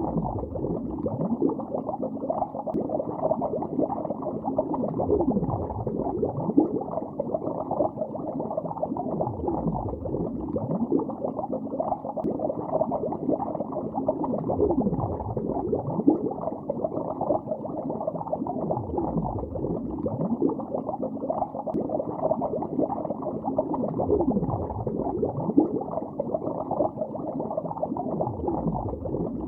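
Bubbles rising through lake water, heard from underwater: a continuous, muffled stream of bubbling and gurgling with no high sounds, with a low swooping sweep about every five seconds.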